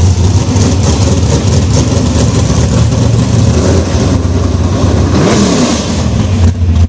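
Vehicle in motion: a loud, steady rush of wind and road noise over a low engine rumble.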